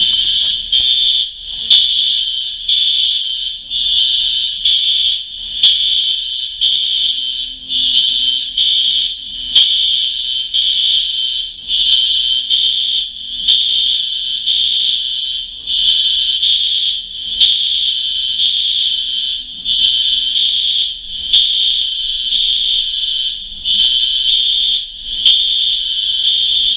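Apartment building fire alarm sounding: a shrill, high-pitched electronic tone pulsing on and off over and over, way too loud.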